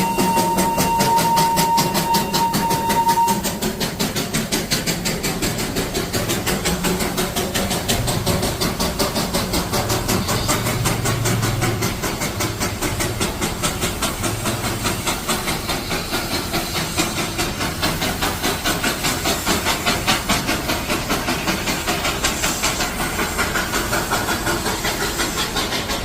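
Darjeeling toy train's steam locomotive: its whistle holds one steady high note for about the first three seconds, then the engine runs on with steam hiss and a fast, even rhythm of beats.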